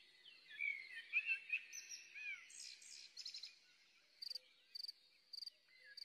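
Faint nature ambience: crickets chirping in short, evenly spaced pulses, with a few twittering bird calls in the first half.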